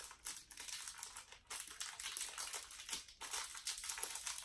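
Candy-bar wrapper crinkling and crackling as it is worked open by hand, a quick, irregular run of small crackles.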